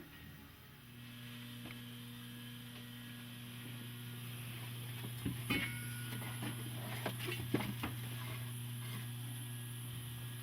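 A steady low hum, with a few short clicks and knocks from handling about halfway through.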